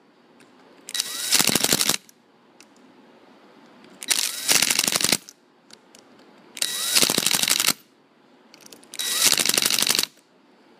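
Ryobi three-speed quarter-inch hex impact driver, set on low, driving small screws into a motor's terminal block: four bursts of about a second each, the motor spinning up with a short rising whine and then the impact mechanism hammering rapidly as each screw snugs down.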